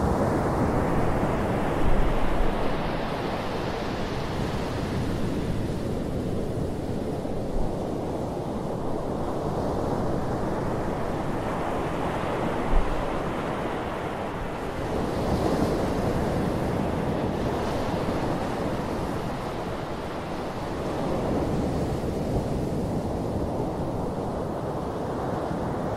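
Small ocean waves breaking and washing up a sandy beach: a continuous rushing surf that swells and ebbs every several seconds. Wind rumbles on the microphone, with a couple of short buffeting thumps.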